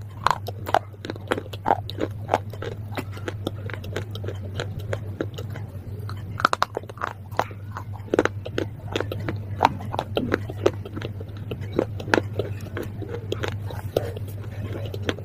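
Close-miked crunchy chewing of baked clay-pot and slate-pencil pieces: many small, irregular crunches, several a second, with a steady low hum underneath.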